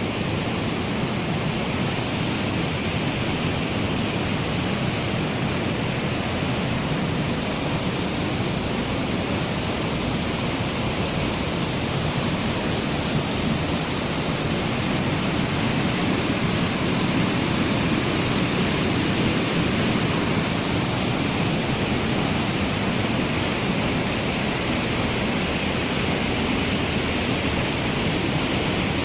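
Waterfall in a gorge: a steady rush of falling water that does not change.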